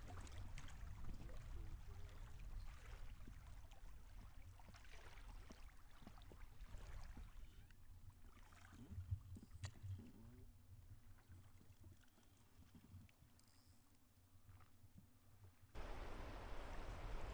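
Faint flow of river water past a drifting raft, with a low rumble under it. It goes quieter for several seconds in the middle, then a louder steady rush of water comes in suddenly near the end.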